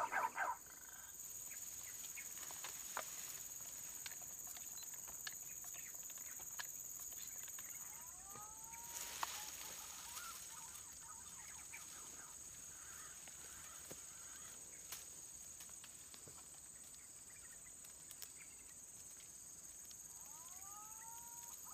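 Faint outdoor ambience: a steady high-pitched insect drone, with a short rising-and-falling bird call about nine seconds in and another near the end, and a few faint clicks.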